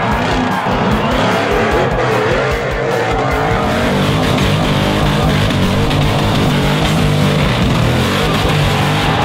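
Off-road race car engines revving hard, their pitch rising and falling, mixed with background music that has a steady beat.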